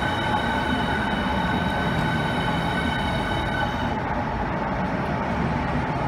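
Southeastern Class 395 'Javelin' electric multiple unit moving along the platform: steady running noise of the train, with a high steady whine over it that stops about three and a half seconds in.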